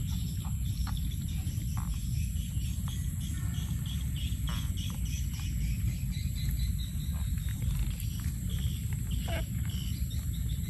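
Live eels being stirred by hand in a woven bamboo basket, with small wet slithering clicks, under a steady low rumble and the constant high drone of insects.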